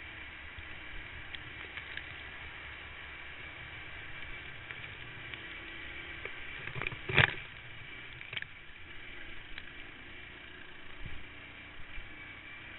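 Rally kart running flat out on a dirt track, heard from a camera mounted on the kart: a muffled, steady mix of engine and wind noise. A single loud knock about seven seconds in stands well above it, with a few smaller clicks afterwards.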